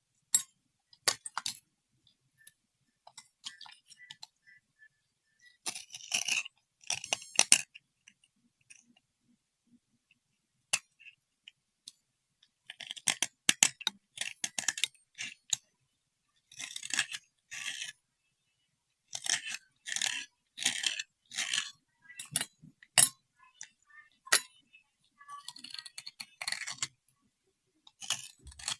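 Short bursts of scraping, crackling and clinking from small hard objects being handled, coming in clusters of about a second with pauses between.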